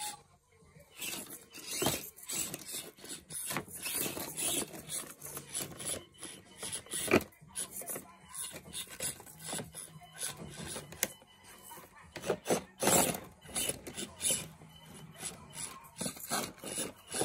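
RC scale crawler truck climbing over sticks, a clear plastic egg carton and rocks: irregular scraping, crinkling and clicking of its tires and chassis against wood, thin plastic and stone, with a few sharper cracks about seven and thirteen seconds in.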